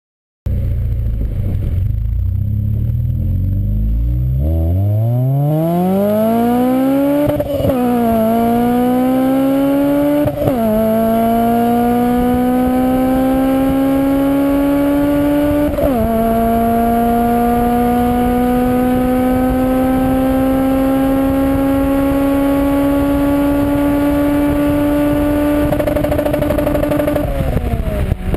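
Honda Civic Si's K20Z3 four-cylinder VTEC engine, breathing through a stainless header and 2.5-inch exhaust, accelerating hard through the gears. After a few seconds of low running it revs up steeply, then the note drops with three quick upshifts and climbs again each time, the last pull the longest, and it lifts off near the end.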